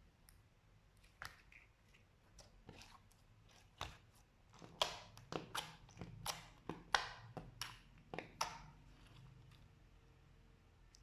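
Slime being pressed and squished by hand, making sticky clicks and crackles. They come sparsely at first, pack together through the middle, then fade back to a few faint clicks.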